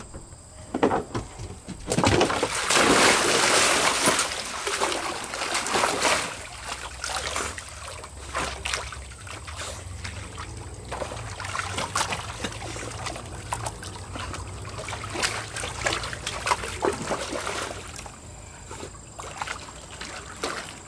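Dog swimming in a small round backyard pool: loud splashing for the first few seconds, then quieter sloshing and splashing of water as it paddles about.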